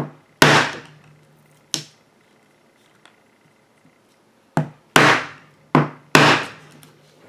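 Mallet striking a metal hand tool held upright on a leather holster on a workbench: sharp knocks, each with a short low ring. Two strikes early, a pause of nearly three seconds, then four more in quick succession.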